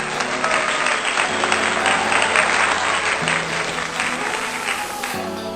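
Applause over background music with a steady bass line, cutting off abruptly at the end.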